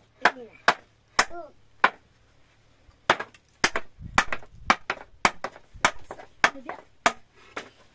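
A rapid, irregular series of sharp knocks or taps, about two or three a second, with a few brief voice sounds between them and a short low rumble about four seconds in.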